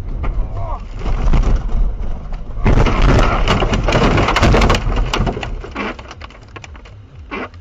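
A car crashing off the road into snow: a long, loud crunching and rattling of body panels, snow and loose debris, loudest about three to five seconds in, then dying away into scattered clicks and knocks.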